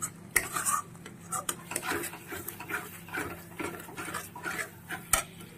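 Metal spatula stirring and scraping thick masala around a stainless steel kadai: irregular scrapes and clinks of metal on the pan, with one sharp clink about five seconds in.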